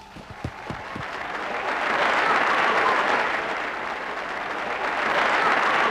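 Audience applauding, building up over the first two seconds and then holding steady. A few soft low thumps come in the first second.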